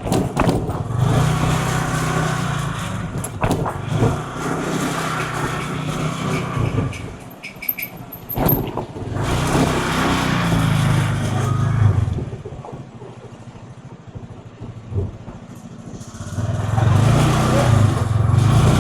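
A road vehicle's engine speeds up and eases off several times, its pitch climbing and then dropping each time, with a quieter lull in between.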